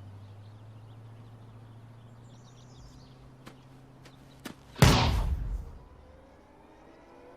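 A sudden loud rushing whoosh about five seconds in, fading away within a second, with a few sharp clicks just before it and a low steady hum underneath.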